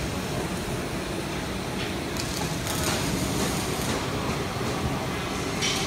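Factory-floor din in a truck-building hall: a steady rumble of machinery with a few short, sharp noisy bursts, about two seconds in, about three seconds in and near the end.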